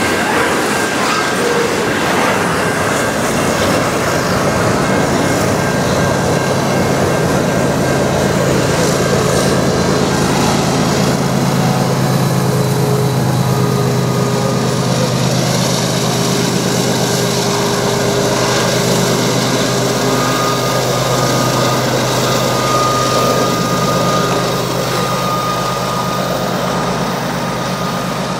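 Double-stack intermodal train rolling past, steel wheels on rail. Then a GE ES44AC diesel locomotive working as a mid-train distributed power unit goes by with its engine running, a steady low hum that peaks about halfway through and eases off as the unit moves away.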